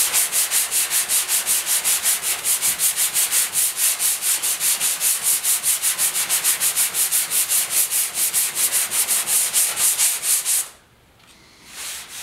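Sandpaper on a hand sanding block scraping back and forth over body putty and paint on a steel truck hood, in fast, even strokes of about five a second. The block-sanding levels the filled high spot and has cut through to bare metal. The strokes stop abruptly near the end, and a few soft rubs follow as a hand passes over the surface.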